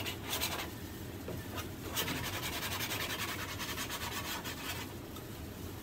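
Palette knife scraping and spreading acrylic paint across a stretched canvas in rapid repeated strokes, with brief pauses about a second in and near the end.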